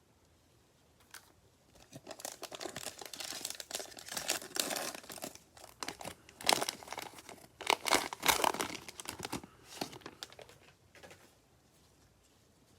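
Cellophane wrapper of a cello pack of trading cards crinkling and tearing as the pack is opened, with sharp louder crackles partway through, then fading out.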